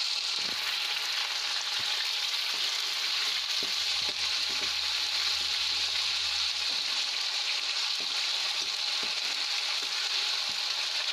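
Sliced onions and ginger-garlic-onion paste sizzling steadily in hot oil in a kadhai, with a steel spoon stirring and now and then clicking against the pan.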